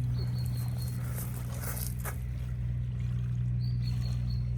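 Steady low drone of construction machinery running, with two short, high, even-pitched whistling tones about three seconds apart.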